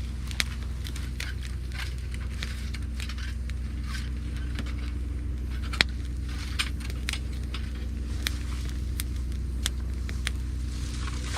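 Wood campfire of gathered branches and driftwood crackling, with irregular sharp pops several times a second and one louder pop about six seconds in, over a steady low hum.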